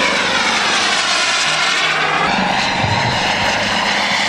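A radio-controlled delta-wing model jet flying past with a steady loud engine rush, its tone sweeping down and then back up as it passes.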